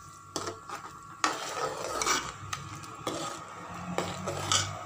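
Metal spoon stirring thick gravy in an open aluminium pressure-cooker pot, with a few short scrapes and knocks against the pot spread through the stirring.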